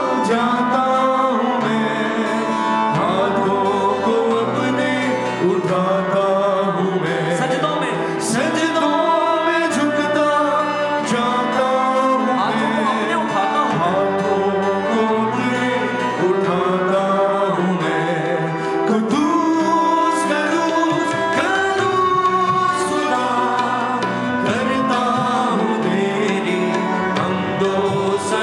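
Live worship music: a band playing a slow song, with a singing voice carrying the melody over it.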